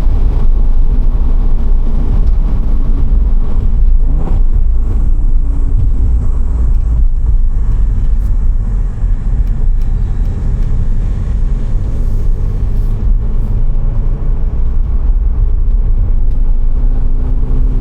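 Audi S5 engine and road noise heard from inside the cabin during a hard drag-strip pass, a heavy low rumble with the engine note climbing and dropping a few times as it pulls through the gears.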